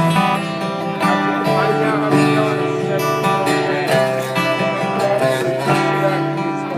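Acoustic guitar strummed in a live song, chords ringing and changing every second or so.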